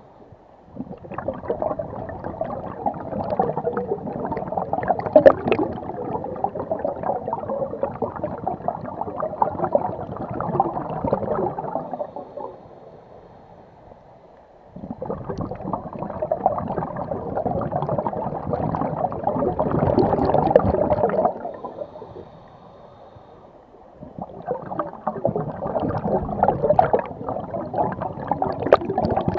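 A scuba diver exhaling through the regulator underwater: exhaust bubbles gurgling in three long bursts, separated by short quieter gaps between breaths.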